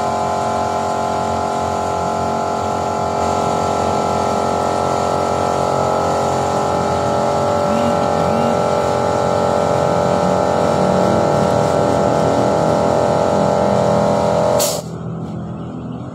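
Steady mechanical running noise from the engine bay during a vacuum carbon-cleaning treatment, building slightly. About fifteen seconds in it cuts off suddenly with a click, leaving a quieter hum.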